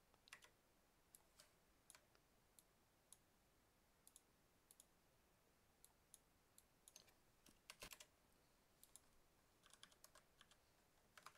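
Faint, scattered clicks of a computer mouse and keyboard keys being pressed one at a time, with a few slightly louder clicks about eight seconds in and near the end.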